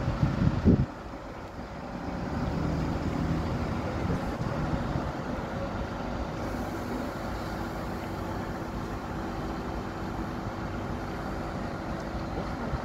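Steady low rumble of road-vehicle noise. A louder stretch at the start stops abruptly about a second in.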